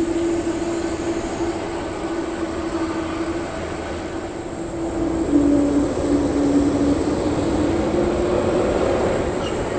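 Boeing 777-200's twin jet engines running as the airliner rolls along the runway, a steady jet whine with a humming tone that dips in pitch and grows louder about halfway through.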